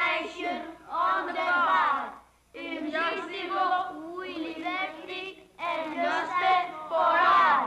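A group of young children singing together in unison, in phrases broken by short pauses.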